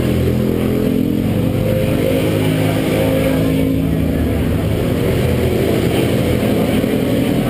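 Several TAG-class 125cc two-stroke kart engines idling together, a steady overlapping drone with slight wavering in pitch.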